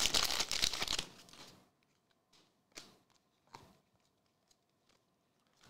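Foil wrapper of a trading-card pack crinkling as it is torn open for about the first second, then a couple of soft clicks as the cards are handled.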